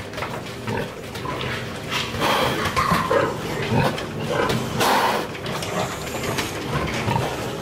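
A group of young piglets grunting and squealing in irregular short calls as they crowd and push around a feed bowl. The loudest, sharpest squeal comes about five seconds in.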